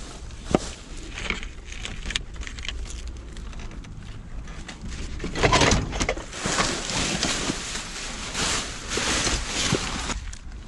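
Rummaging through trash in a dumpster: plastic and packaging rustling, with light knocks and clicks as items are moved, over a steady low rumble. The rustling grows denser about halfway through.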